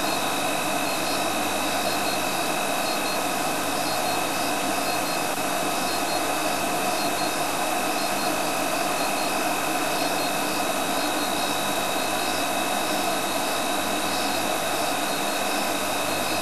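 Steady hum and hiss of an idling vehicle engine, with a faint high chirping repeating through it.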